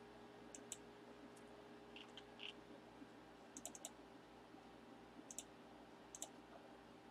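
Faint computer mouse clicks, single and in quick pairs, every second or so, over a faint steady hum.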